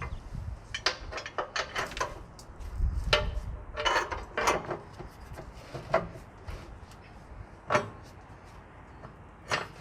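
Metal clinks and knocks from a truck battery hold-down bracket being worked into place, its hook fitted into the hole in the battery box. The knocks come in quick clusters early on, then as single knocks spaced a second or two apart.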